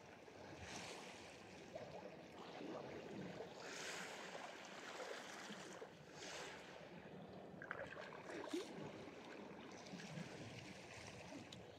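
Faint seawater sounds: small waves lapping and light splashing at the surface where a hooked fish is being drawn in.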